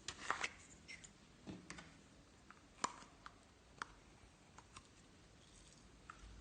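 Slime being handled and kneaded, giving faint, scattered small clicks and pops at irregular intervals.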